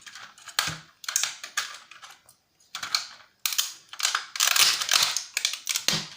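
Brittle plastic casing of an H8C quadcopter drone cracking and snapping as it is torn apart with pliers: irregular clusters of sharp crackles with short pauses between them.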